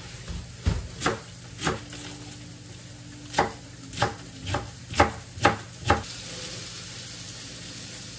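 Kitchen knife chopping cabbage on a wooden cutting board: about nine sharp knocks at an uneven pace, stopping about six seconds in.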